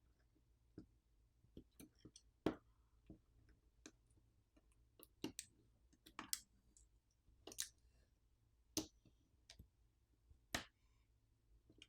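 Faint, irregular light clicks and taps of small tools and phone parts being handled during a smartphone teardown, about a dozen in all, the sharpest one about two and a half seconds in.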